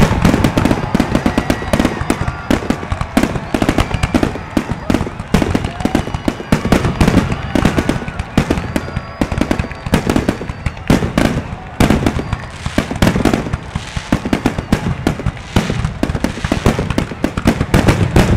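Fireworks going off in rapid succession, a dense, continuous barrage of sharp bangs and crackles.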